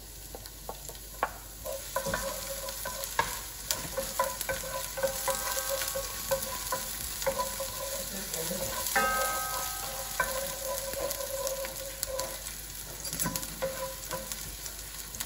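Chopped red onion sizzling in hot cooking oil in a frying pan, stirred with a wooden spoon that scrapes and taps against the pan.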